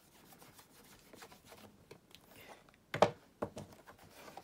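Soft cloth rubbing over a leather shoe's upper, dry-buffing off excess beeswax shoe cream. About three seconds in there is a sharp knock, followed shortly by a lighter one.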